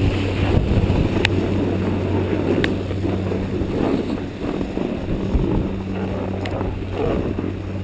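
Strong wind buffeting the microphone: a continuous low rumble, with a steady low hum underneath and a few sharp clicks.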